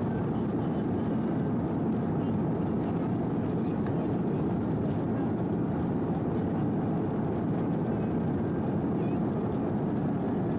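Airbus A330-300 cabin noise while taxiing: a steady low rumble from the engines at low taxi power, heard from inside the cabin.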